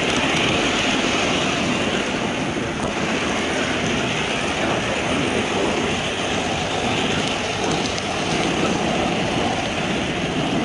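HO-scale model train running along the track, heard through a camera riding on the car: a steady rolling noise of the wheels on the rails.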